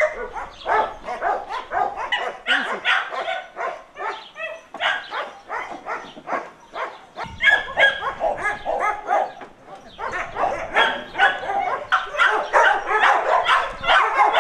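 Kennelled shelter dogs barking nonstop, several barks a second overlapping one another.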